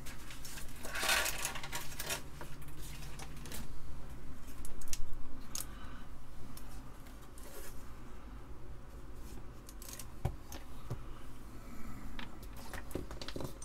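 Handling noise on a workbench: scattered clicks, knocks and light clinks of small hard objects as a circuit board and parts are picked up and set down, with a brief rustle about a second in.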